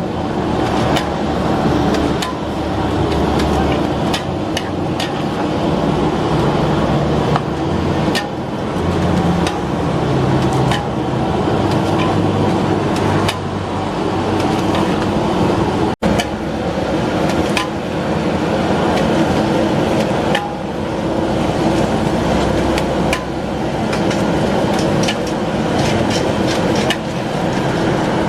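Metal spatula clanking repeatedly against a wok while noodles are stir-fried, over steady traffic noise.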